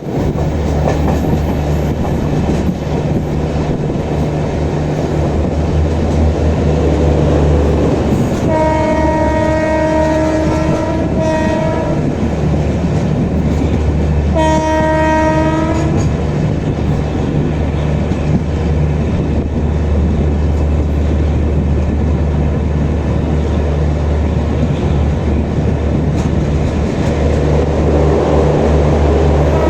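Steady low drone of an EOG generator car's diesel generator heard from inside a coach running at speed, with wheel and rail noise. The WAP-7 locomotive's horn blows a long blast, a short one right after, another about halfway through, and a fourth starting near the end.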